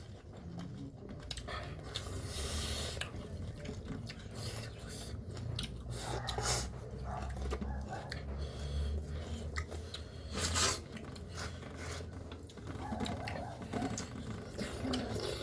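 Eating sounds close to the microphone: chewing and mouth noises with scattered irregular clicks, over a steady low hum.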